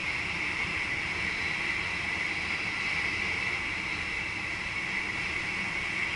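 Steady running noise heard inside the cab of a VIRM double-deck electric intercity train on the move: an even rushing hiss with a high-pitched band, unchanging throughout.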